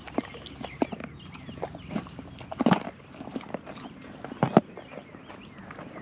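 A horse chewing a carrot right at the microphone: many small crunching clicks, with two loud sharp crunches around the middle. A small bird repeats a short high call about every two seconds.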